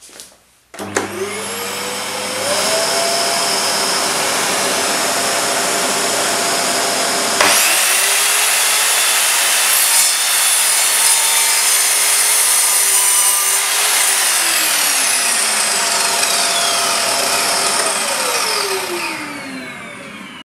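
Evolution R210SMS sliding mitre saw with a multi-material blade starting up with a rising whine. About halfway through, the blade cuts through a piece of hardwood: the sound turns louder and harsher and the pitch drops for several seconds. The motor then runs free again, and near the end it is switched off and winds down.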